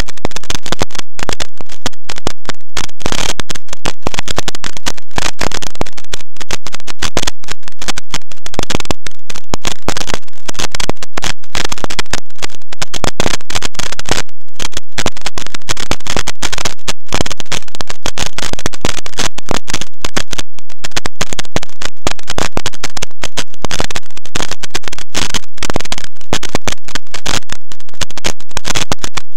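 Loud, heavily clipped crackling static with many brief dropouts, picked up in flight by the Silverlit SpyCam toy helicopter's onboard camera microphone, overloaded by the helicopter's own rotor and motor noise.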